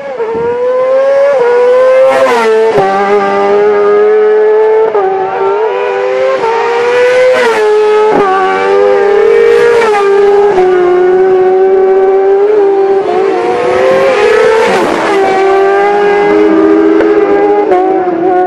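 Racing motorcycle engines at high revs, loud throughout, the pitch climbing under acceleration and dropping sharply again and again as the bikes shift up and pass at speed.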